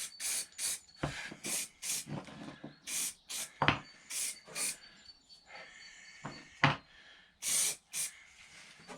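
Aerosol spray can of protective paint being sprayed onto small metal parts in about a dozen short hisses, with a longer one about three-quarters of the way in. Two brief sharp chirps come through, one near the middle and a louder one about two-thirds in.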